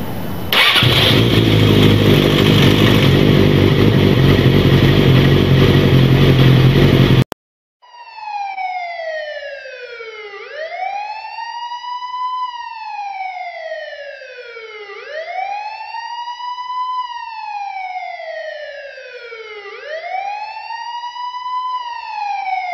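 A loud, steady noise with a low hum cuts off abruptly about seven seconds in. Then a police-style wail siren follows, its pitch climbing quickly and sliding slowly back down in repeating cycles of about four and a half seconds.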